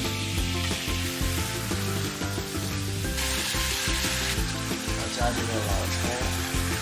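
Whole fish sizzling in hot oil and sauce in a frying pan as it is braised. The sizzle flares up louder for about a second, a little over three seconds in, as cooking wine is poured into the hot pan.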